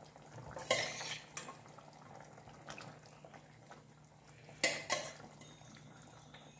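Ladle stirring and scraping in a pot of simmering curry, with two short bursts of clatter about a second in and again near five seconds.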